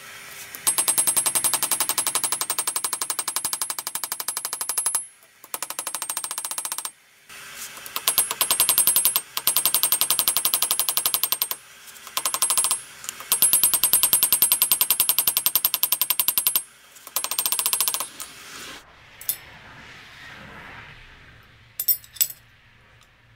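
Rapid, even machine hammering in on-and-off bursts of one to four seconds, with short pauses between them; it stops about eighteen seconds in, and a few light clinks follow.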